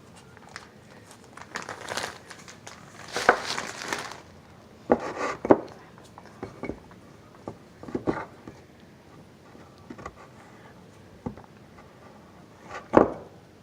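Plastic packaging crinkling in irregular bursts as it is handled, with scattered small clicks and knocks.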